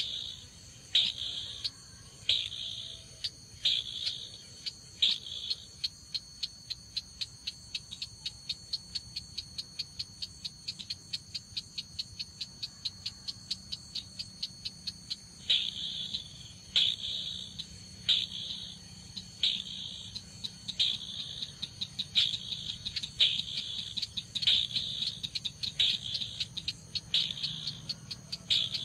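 Sharp, high calls of the red-eyed 'chàng nghịch' crake repeated about once a second, played through a bird-trapping lure speaker. For several seconds in the middle they break into a fast even run of ticks, about five a second, before the spaced calls resume. Thin steady high tones run underneath.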